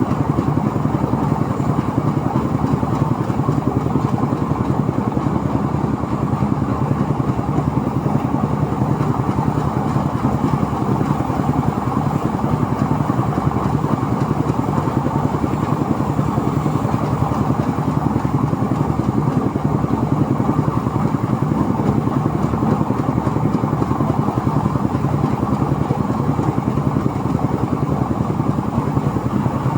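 Engine-driven rice threshing machine running at a steady speed, a constant even drone that does not change.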